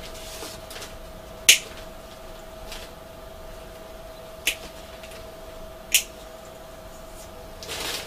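Three sharp clicks of small hard parts knocking together as things are handled and put away in a storage crate, over a faint steady tone. A short rustle comes near the end.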